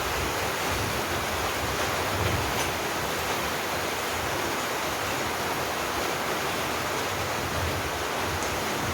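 Meat sizzling on a home barbecue grill: a steady, even hiss.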